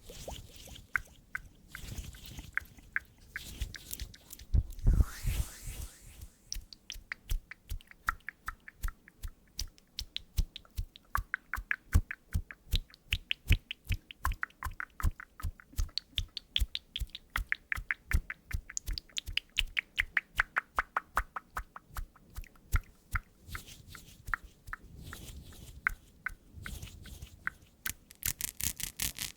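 A steady run of short, close-up clicks, about four a second, some with a brief high ring. A louder rustle comes about five seconds in.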